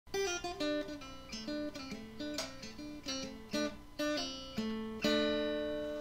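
Intro music: an acoustic guitar picks a run of single plucked notes, then strikes a chord about five seconds in that rings out and fades.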